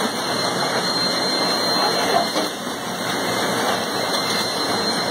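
Steady machinery noise of a running automated assembly line with its conveyor belt moving, with a faint steady high-pitched whine.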